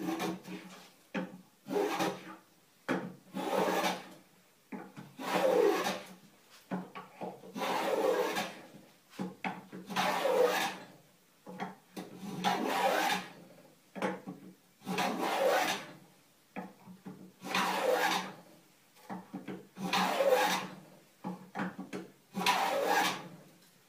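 Metal plow plane cutting a groove along the edge of a wooden board, stroke after stroke, each one shaving wood. Short, light strokes at first, then a steady run of longer strokes about a second each, roughly every two and a half seconds.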